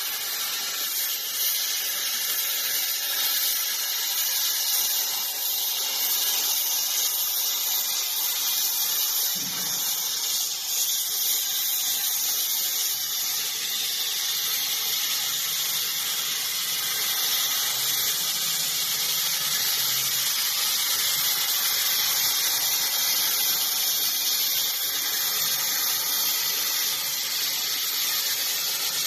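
CNC plasma cutting torch cutting a metal sheet: the plasma arc makes a steady, high-pitched hiss.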